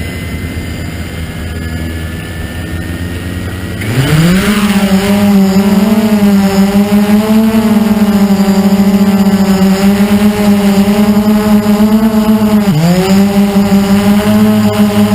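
Blade 350 QX2 quadcopter's brushless motors and propellers: after a quieter low rumble, they spin up about four seconds in with a rising whine, then hold a loud, steady buzzing hum. Near the end the pitch dips briefly and comes back up, as the throttle is eased and reapplied.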